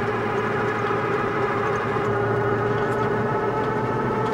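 Engine of a small vehicle running at a steady speed, heard from aboard while it drives along the road.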